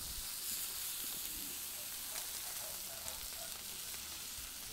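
Boneless chicken thighs sizzling on a hot Blackstone flat-top griddle as they are turned with tongs: a steady frying hiss that rises a little right at the start, with a few faint clicks.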